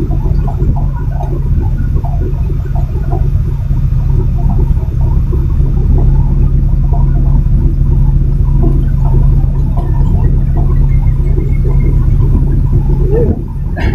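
Container truck's diesel engine running while driving, heard from inside the cab as a loud, steady low rumble with rattling on top. The sound dips briefly near the end.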